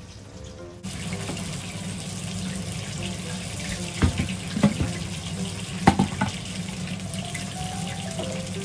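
Water running steadily from a kitchen tap, starting suddenly about a second in, with a few sharp knocks of a plastic blender jar being handled in the middle.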